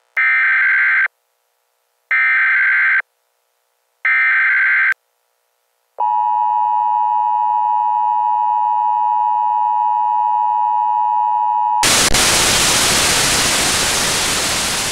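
Emergency-broadcast alert sound: three screeching electronic data bursts of about a second each, two seconds apart, then the steady two-tone emergency attention signal for about six seconds. It cuts off suddenly into loud white-noise static.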